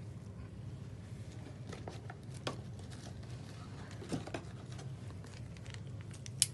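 Steady low room hum with scattered small clicks and light rustling as a syringe, vial and their paper wrappers are handled at a table. One sharp click just before the end is the loudest sound.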